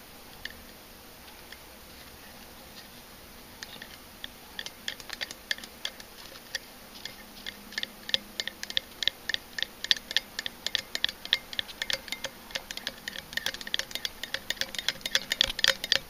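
A thin stir stick clicking against the inside of a glass jar as it stirs HVAC stop-leak sealant mixed into water. A few scattered clicks at first, then from about four seconds in a quick, uneven run of several clicks a second that grows louder toward the end.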